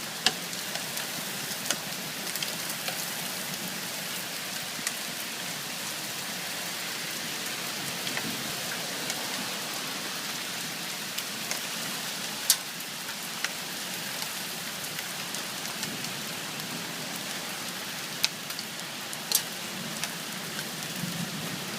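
Rain falling steadily on surfaces, with scattered sharp ticks of hailstones striking, a few of them much louder than the rest.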